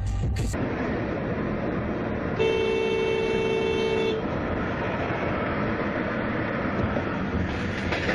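A car horn sounds one long blast of about two seconds, with two close tones, over the steady road and cabin noise of a moving car.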